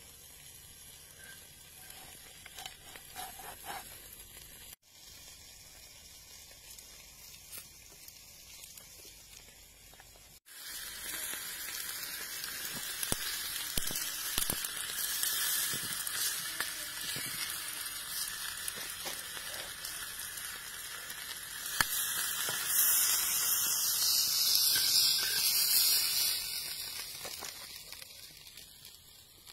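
Meat sizzling on a hot stone slab set over wood embers: a steady hiss that comes in about ten seconds in and grows louder for a few seconds near the end. Before that, quieter knife cutting on a board.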